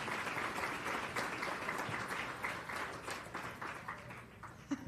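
Audience applauding, with dense clapping that thins out and dies away near the end.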